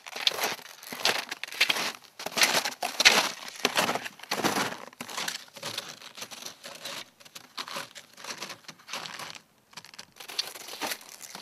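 Footsteps crunching in dry snow, about two steps a second, softer past the middle and stronger again near the end.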